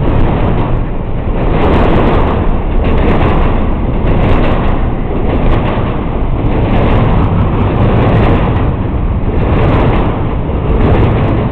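Loud, steady rumble of an intermodal freight train's cars rolling past, its steel wheels on the rails swelling and easing about once a second as the cars go by.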